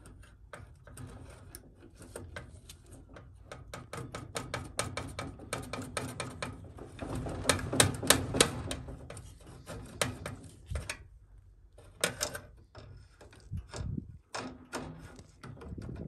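Metal pliers clicking and scraping against a microwave's high-voltage capacitor terminal and surrounding sheet-metal as a push-on connector is worked loose: a rapid run of small clicks and rattles, densest and loudest about halfway through, with a few separate louder clicks near the end.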